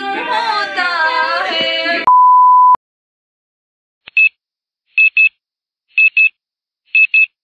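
Women talking, then a loud steady one-pitch beep of under a second that cuts off sharply. From about four seconds in, a digital wake-up alarm beeps in quick pairs about once a second.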